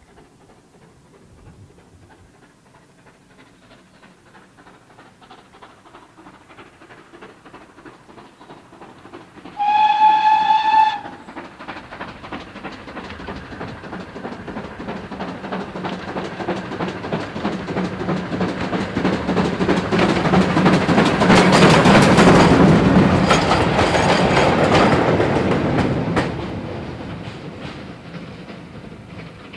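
GWR 5600 class 0-6-2 tank locomotive No. 6695 gives one short whistle blast about ten seconds in. It then approaches working steam, its exhaust beats and wheel noise growing louder as it passes close by, then fading away.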